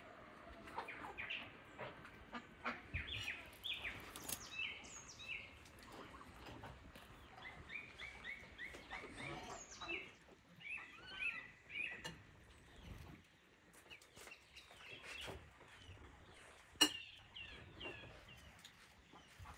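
Birds chirping in quick runs of short high notes, with scattered light rustles and clicks and one sharp click about seventeen seconds in.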